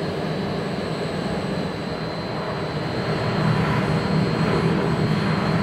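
Jet aircraft engines running with a steady rumble and a thin high whine, getting louder about three and a half seconds in.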